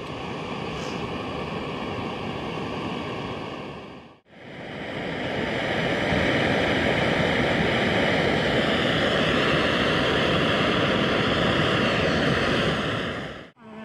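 MSR PocketRocket 2 gas canister stove burning under a pot of water, a steady rushing hiss from the flame, running below full flame. The sound drops out briefly about four seconds in and comes back a little louder.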